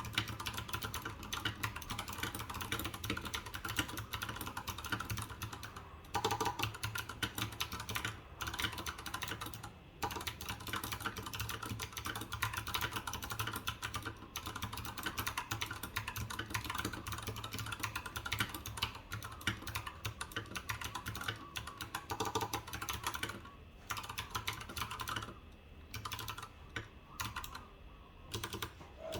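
Typing on a mechanical keyboard with stock, unmodified 40 g Clickiez switches: a fast, continuous run of key clicks with a few brief pauses, thinning out near the end.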